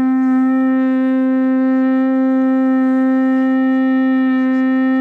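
Conch shell trumpet blown by a Buddhist monk in one long, steady note: the monastery's call to prayer and to the communal morning meal.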